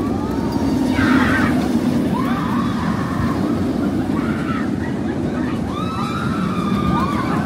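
Steady rumble of the VelociCoaster steel roller coaster train running along its track, with riders' screams rising and falling over it several times.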